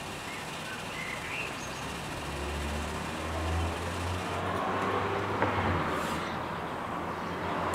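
Hookah's water base bubbling as smoke is drawn through the hose: a low, steady bubbling that swells about two seconds in and dies away near the end.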